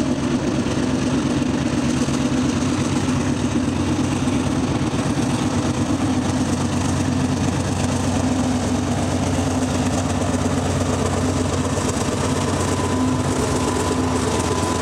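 Diesel locomotives of an eastbound freight working hard upgrade, chugging with a steady, deep engine drone as they approach and pass, hauling what may be a heavy coal train.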